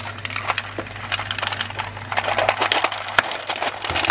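Sugar-shelled chocolate Mini Eggs clicking and clattering as they are dropped a few at a time into a plastic bowl, in quick irregular runs of small knocks.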